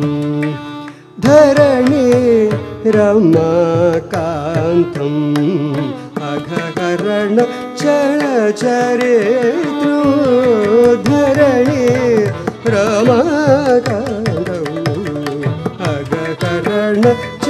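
Male Carnatic vocalist singing in raga Ranjani with constant sliding ornaments, accompanied by violin and percussion. There is a brief break about a second in.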